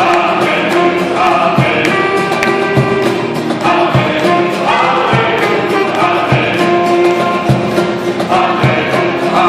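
Group singing accompanied by a cello and a saxophone, with a steady beat underneath.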